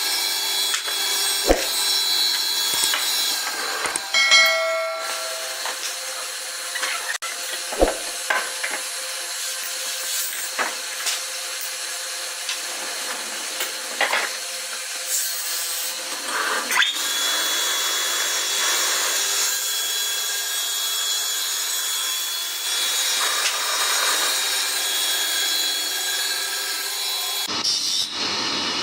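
Sawmill blade cutting through a log: a steady sawing noise, broken by a few sharp knocks.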